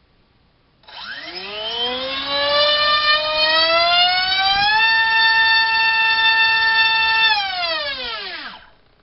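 Turnigy D2826 2000kv brushless motor spinning a Gemfan 5045 ball-nose propeller on a 4-cell battery in a thrust test: about a second in it spools up with a whine that climbs in pitch, holds at a steady top pitch for a couple of seconds, then winds down and stops near the end.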